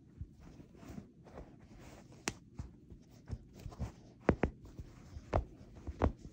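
Soft, irregular rustling and tapping as a plush toy brushes against a dog's paws and the couch upholstery, with a dozen or so sharp little taps, the loudest a little past the middle and again near the end.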